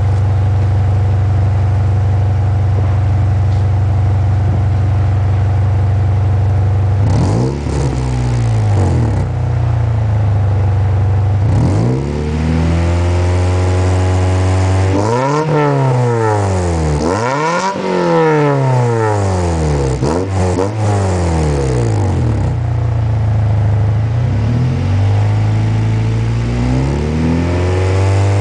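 2000 Honda Prelude's four-cylinder engine through a Tanabe Racing Super Medallion exhaust, idling steadily and then revved in repeated blips. Several quick revs come one after another in the middle, and the engine drops back to idle between them.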